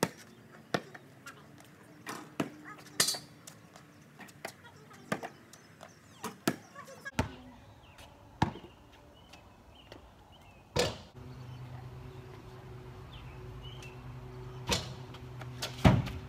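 Basketball bouncing on a concrete driveway and striking the rim and backboard: a run of sharp, irregular thuds, the loudest near the end. A steady low hum comes in about two-thirds of the way through.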